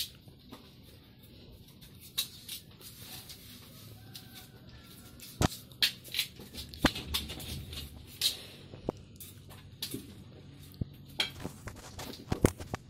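Knives cutting and peeling fresh cassava roots, giving irregular sharp knocks and scrapes. Chickens cluck in the background.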